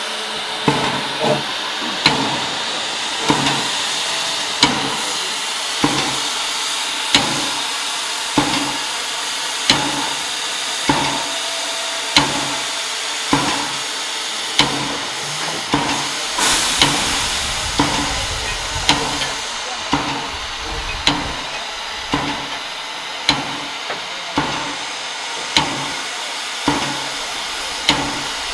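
Baldwin 2-6-2 narrow-gauge steam locomotive standing still: a steady hiss of steam with a sharp knock repeating a little more than once a second. About two-thirds through, a louder burst of hissing steam.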